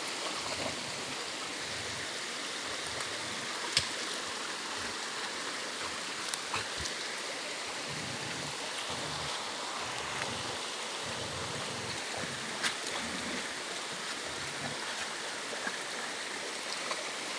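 Small forest stream running over rocks: a steady rush of water, with a couple of sharp clicks.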